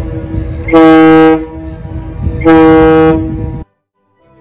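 Two loud blasts of a ship's horn, each a little over half a second, with the same tone going on more faintly between them over wind rumble on the microphone; it all cuts off suddenly near the end.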